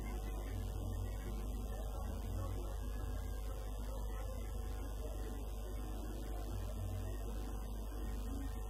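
Steady low electrical-type hum, unchanging throughout, over faint indistinct background noise.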